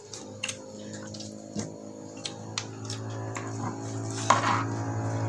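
Close-up eating sounds of meatball soup: a spoon clicking against a plastic bowl again and again, with wet chewing and slurping, loudest about four seconds in. A steady low hum grows louder in the second half.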